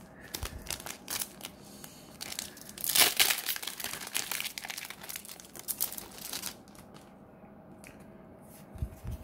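A foil Weiss Schwarz booster pack being torn open and crinkled by hand, loudest about three seconds in, with the crinkling dying down after about six seconds. A soft low thump near the end.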